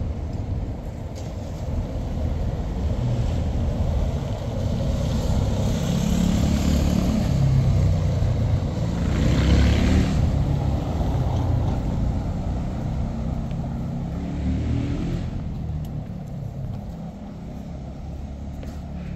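A motor vehicle passing close by, growing louder to a peak about halfway through and then fading away, over a steady low street rumble.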